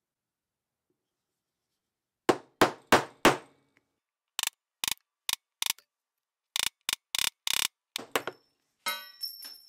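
Steel hollow hole punch cutting bolt holes in gasket paper on a wooden workbench: four loud knocks a little over two seconds in, then a run of short sharp clicks, and a brief metallic ring near the end.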